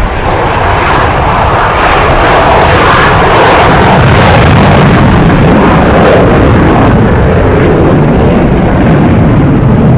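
Loud, steady jet roar from a Sukhoi Su-30MKI fighter's twin AL-31FP turbofan engines as it takes off and climbs away.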